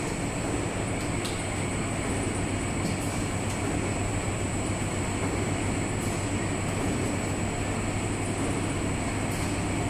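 Deep-fried dough stick (youtiao) frying line running: a steady mechanical rumble from its conveyor belts and chain-driven turning rack, with a constant thin high whine and a few faint clicks.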